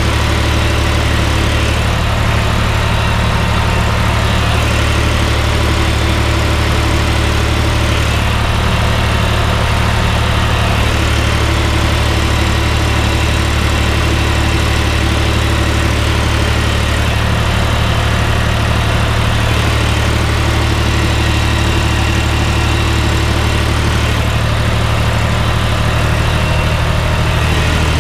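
Tractor diesel engine running steadily while the tractor drives along, heard close up from the driver's seat as a steady low drone; its note shifts slightly near the end.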